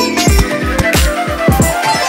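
Background electronic music with a fast kick-drum beat and a long falling sweep.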